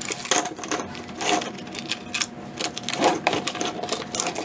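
Husqvarna chainsaw's saw chain clinking and rattling as it is worked off the guide bar and clutch sprocket by hand, a run of irregular metallic clicks.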